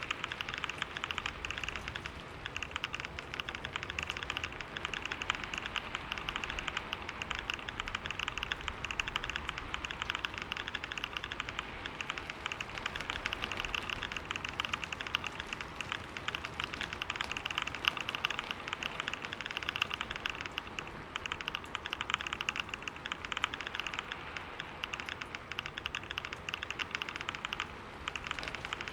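Rapid, continuous typing on a computer keyboard: a dense patter of key clicks at about 125 words per minute, with a few brief lulls.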